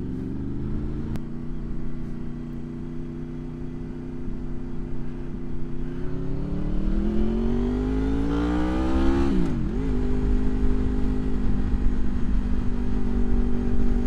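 Honda VFR's V4 engine pulling at steady cruise, then revving up in pitch for about three seconds, dropping sharply just after nine seconds as it shifts up a gear, and settling back to a steady note. Wind rushes over the helmet microphone throughout.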